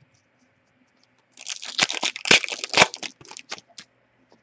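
Foil wrapper of a hockey trading-card pack being torn open and crinkled: a burst of crackly tearing that starts about a second and a half in and lasts a little over two seconds.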